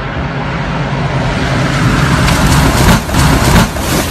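Twin-engine propeller plane coming in low, its engine and propeller noise swelling as it rushes past close by, with several loud thumps in the last second and a half as it touches down hard.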